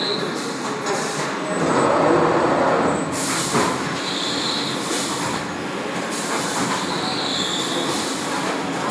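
Automatic pallet-type textile printing machine running: a steady mechanical clatter and hiss with short high squeals every few seconds. It swells louder for about a second and a half, starting near two seconds in.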